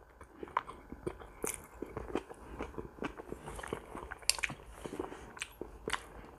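Close-miked chewing of meat and vegetable salad, soft and irregular, with a few sharp clicks of a metal fork and knife.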